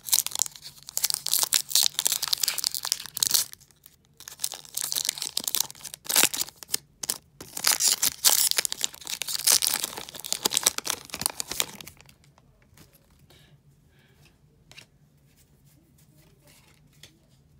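Foil booster pack wrapper of Pokémon trading cards being torn open and crinkled in the hands, a dense crackle that stops about twelve seconds in, leaving a few faint ticks.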